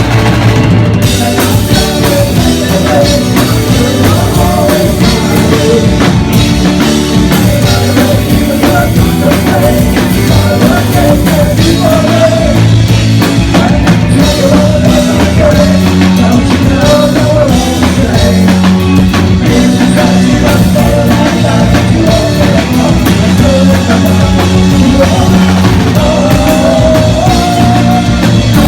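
Live rock band playing loudly: drum kit, electric guitars, bass and keyboards in a steady full-band groove, with a wavering melodic line on top.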